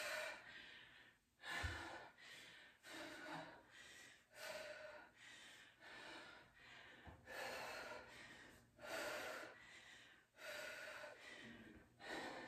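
A woman breathing hard through a kettlebell squat-and-press set, with a sharp exhale roughly every second and a half, one for each rep.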